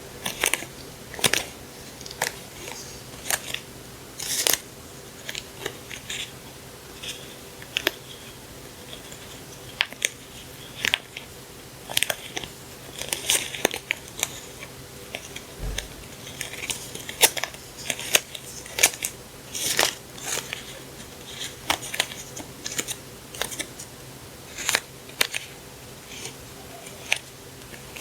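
Paper stationery and its packaging being handled and unpacked: irregular crisp rustles, taps and snips, one to three a second, over a faint steady hum.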